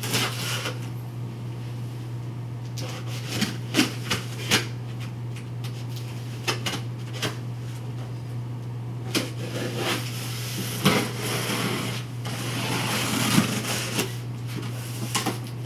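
A cardboard shipping box being opened and handled by hand: scattered knocks and clicks, with a longer stretch of rustling and scraping about two-thirds of the way through, over a steady low hum.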